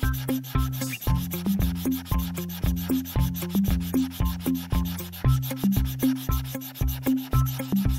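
A colouring pen's tip rubbing back and forth in quick, even strokes, a steady scratchy rubbing, over background music with a low stepping bass line.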